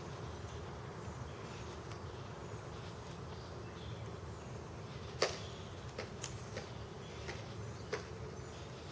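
Honeybees buzzing steadily around a package of bees being installed into a Warre hive, with four short sharp knocks in the second half.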